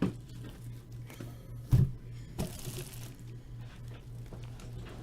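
A trading-card box being handled: one loud thump about two seconds in, then a brief tearing, crinkling rustle of its plastic wrap, over a steady low hum.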